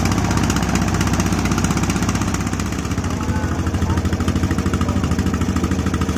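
A small boat's engine running steadily with a fast, even beat; the beat shifts slightly about three seconds in.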